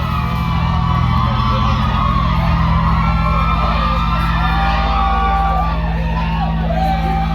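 A live band playing loudly over a concert PA with a steady heavy bass, while the crowd whoops and cheers over it.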